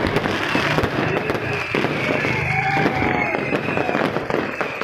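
Fireworks going off in a dense, unbroken run of crackles and bangs.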